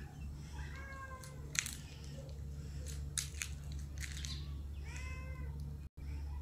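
Domestic cat meowing twice, two drawn-out meows about four seconds apart, with a few short high ticks between them over a steady low hum.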